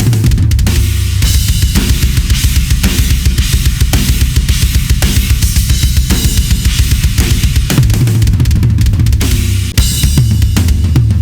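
Gretsch USA Custom drum kit, with 22-inch kick, 12-inch rack tom, 16-inch floor tom and a chrome-over-brass snare, played as a full-kit groove and fill. Dense, fast strokes mix kick, snare, toms that drop in pitch, and cymbals, with a brief break near the end.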